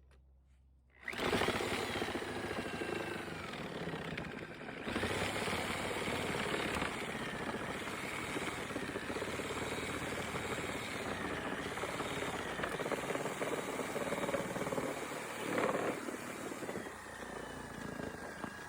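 Electric saw cutting through old fence wood, starting about a second in and running continuously, its whine dipping and rising in pitch as the blade loads and frees in the wood.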